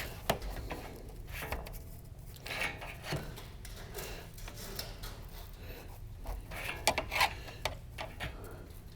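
Intermittent light scraping and rubbing with scattered sharp ticks and clinks, from sheet-metal roofing pieces being handled and fitted; a cluster of clicks comes about seven seconds in.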